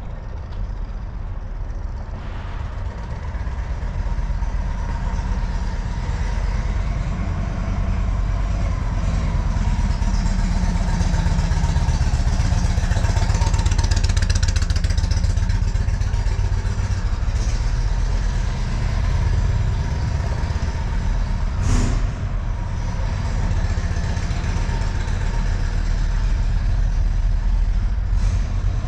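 Steady rumble of vehicle engines and traffic, swelling as a vehicle passes about halfway through. A single sharp click sounds about 22 seconds in.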